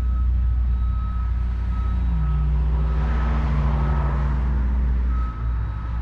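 A construction vehicle's reversing alarm beeping in a regular series of single-pitch beeps over the steady low rumble of heavy machinery engines.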